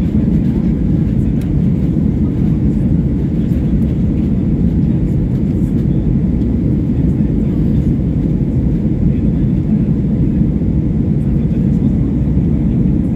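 Airliner's jet engines and airflow during takeoff and climb: a steady, low rumble that holds even throughout.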